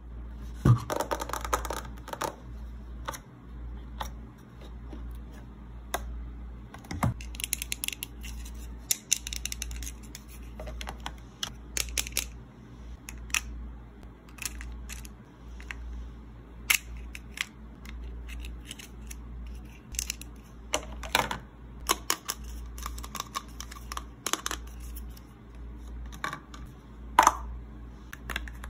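Toy food pieces being handled and set into the compartments of a plastic Bentgo Kids lunch box: scattered light clicks, taps and plastic clatter, with a denser burst of handling about a second in. A faint steady low hum runs underneath.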